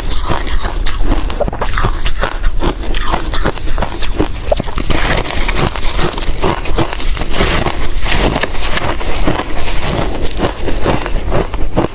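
Frozen ice being bitten and chewed close to the microphone: dense, irregular crunching and crackling that goes on without a break.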